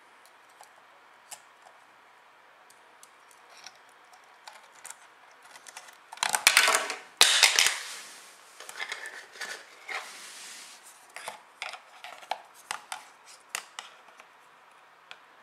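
Small plastic clicks and taps from a camcorder's flip-out LCD assembly being handled and taken apart by hand. About six to eight seconds in comes a louder burst of rapid clatter and scraping, followed by scattered clicks.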